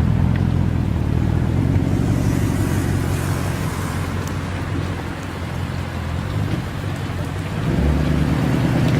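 Audi RS6 C7 Performance's twin-turbo V8 running through a Milltek exhaust with a steady low drone. It eases off a little past the middle, then grows louder about three-quarters of the way in as the engine picks up.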